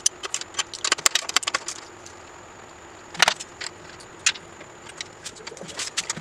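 Metal wrench and hand tools clinking and clicking against a motorcycle's rear axle nut and hub as they are worked: quick runs of sharp metallic clicks in the first two seconds, a louder clank about three seconds in, and scattered clicks after.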